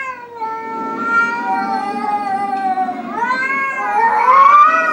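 A cat yowling in long drawn-out meows. One long call slowly falls in pitch, then come two shorter calls that rise and fall, the last the loudest.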